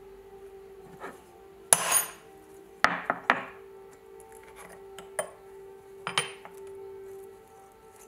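Sharp metal clinks and knocks as a small steel tool works at the pins of an old pocket knife's handle against a wooden block, the loudest a clink about two seconds in and a quick cluster around three seconds. Under them an air-raid siren holds one steady tone.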